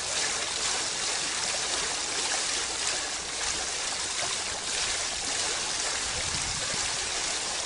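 Water running steadily, like a small stream or fountain.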